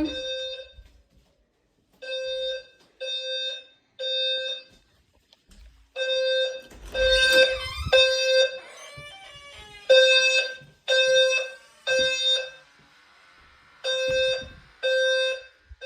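Fire alarm horn strobe sounding a buzzy horn tone in repeating groups of three short blasts about a second apart, each group followed by a longer pause: the temporal-three evacuation pattern.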